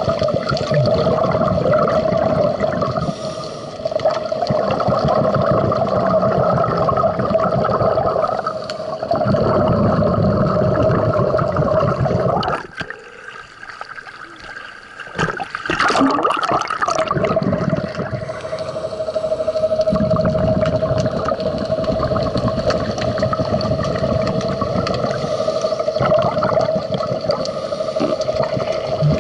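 Underwater bubbling and rushing water with a steady mechanical hum, as heard on a diver's camera. It drops away sharply for about three seconds near the middle, then resumes.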